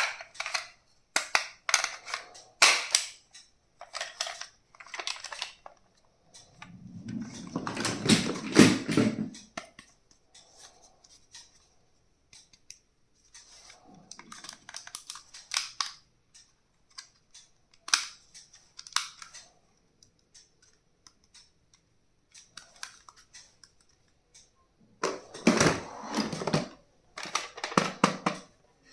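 Hands handling plastic stationery and packaging at close range: irregular clicks, taps and short rustling scrapes, with a longer stretch of rustling about a third of the way in and a run of louder knocks near the end.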